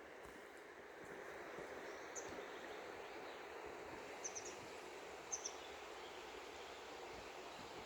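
Steady rushing of a fast river's flowing water, with a few short, high bird chirps, some in quick pairs.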